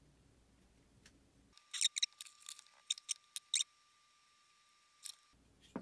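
Light clicks and scrapes of a small screwdriver and the metal parts of a partly disassembled USB condenser microphone being handled: a quick cluster of them about a second and a half in, then a single click near the end.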